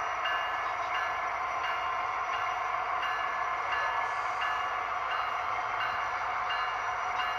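Model passenger train rolling along layout track: a steady running whir with light ringing ticks repeating a little under twice a second.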